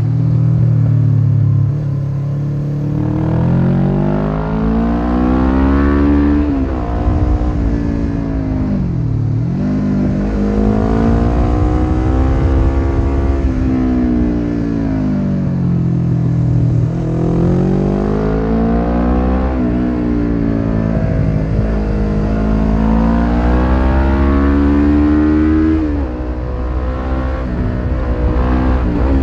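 1993 Suzuki GS500E's air-cooled parallel-twin engine through a Takkoni slip-on exhaust with dB killer, ridden hard: the revs climb and fall back again and again as the rider works the throttle and gears, with a sharp drop about nine seconds in. A steady low wind rush runs underneath.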